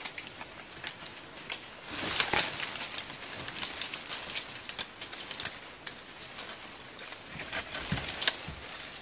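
Dry leaves and twigs crackling and rustling underfoot and against branches as a person climbs through forest undergrowth, with many irregular small snaps and a louder crunch about two seconds in.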